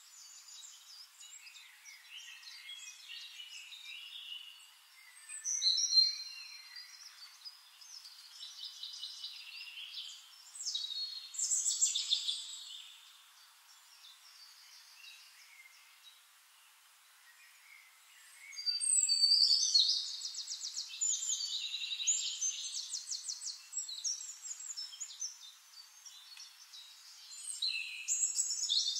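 Forest songbirds singing: chirps and whistled phrases come in bursts between quieter spells, with a long, fast trill about two-thirds of the way through.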